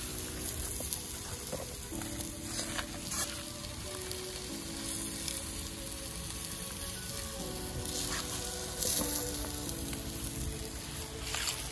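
Whole fish sizzling steadily as they roast on a hot flat plate over wood embers, with a few light scrapes and clicks as a knife turns them.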